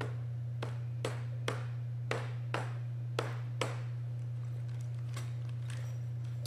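Rubber mallet tapping the tenons of a cedar log porch swing's back into the mortises of its arm section. A series of sharp taps, about two a second, comes first, then a few lighter ones in the second half, over a steady low hum.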